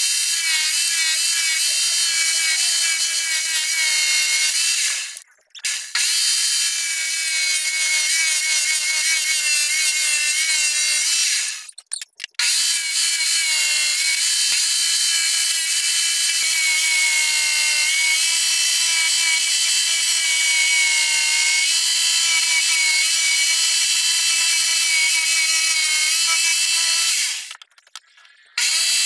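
A small electric power tool's motor running with a steady whine whose pitch wavers slightly, as under light load. It cuts out briefly about five seconds in, again about twelve seconds in, and near the end.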